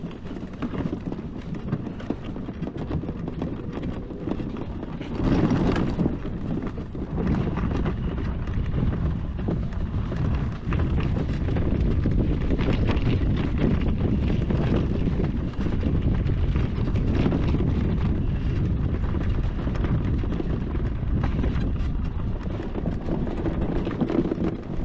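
HECHT 59399 electric ATV riding over rough, rutted dirt: tyres rumbling and the body rattling and knocking over bumps, with wind on the microphone. It gets louder about five seconds in.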